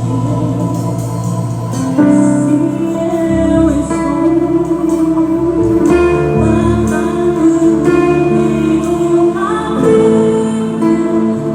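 A song: a singing voice with held notes over instrumental backing that includes guitar.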